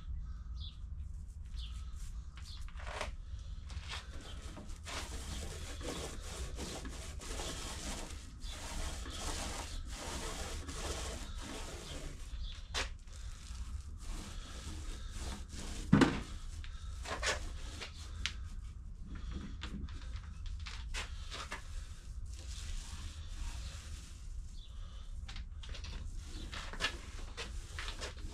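Foam roller spreading finishing epoxy over a wooden model boat hull: an irregular, sticky rubbing with scattered small clicks over a steady low hum. One sharp knock about halfway through.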